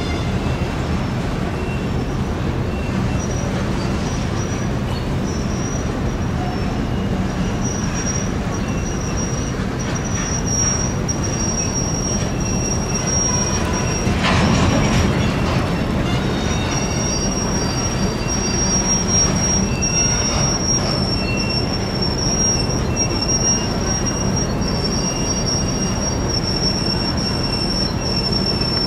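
Freight train's covered hopper cars rolling slowly past, steel wheels rumbling on the rails with a thin, high-pitched wheel squeal that comes and goes. A brief louder burst of noise about halfway through.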